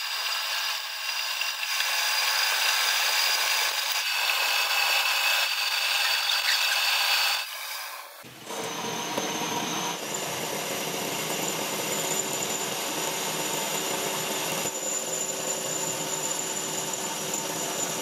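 Metal lathe turning the steel shank of a pipe wrench's movable jaw, the cutting tool shaving the bar with a steady high hiss and whine. The sound breaks off about eight seconds in and picks up again with a deeper machine hum under the cutting.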